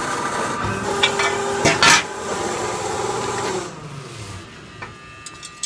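A steady rasping of a tool working metal, with a sharp metallic knock about two seconds in; the rasping stops a little over halfway through, leaving a much quieter background.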